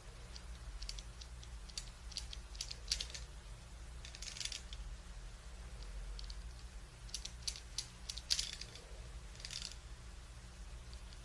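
Dear Dahlia metal eyelash curler clamping the lashes, heard up close: clusters of small clicks and crinkles as it is squeezed and released several times, over a steady low hum.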